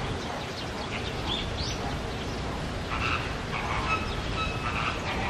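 Several short animal calls, most of them in the second half, over a steady low rumble of background noise.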